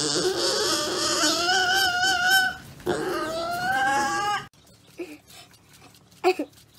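A pet pig squealing in two long, wavering cries, the second stopping about four and a half seconds in. After that only faint taps and one short sharp sound.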